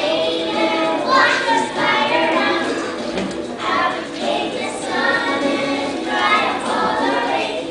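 A group of young children singing together as a choir, with music playing along.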